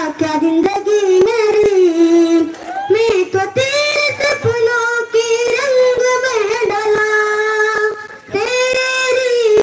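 A boy singing solo into a microphone: a melody with several long held notes.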